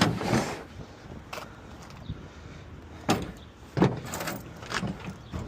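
Knocks and clanks of tools and parts being handled at a car during a roadside tire change, about six over a few seconds, the loudest a little after three seconds and near four seconds.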